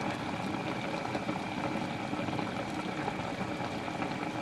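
Vinegar-and-water paksiw broth simmering in a pan of white perch, a steady bubbling with small crackles.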